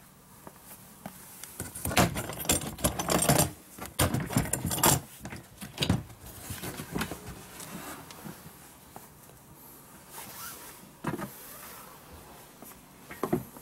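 DeWalt DWST08250 ToughSystem hard plastic tool box being handled and opened by hand. A dense run of clattering clicks and knocks comes in the first few seconds, then scattered single clicks as the latches and lid are worked.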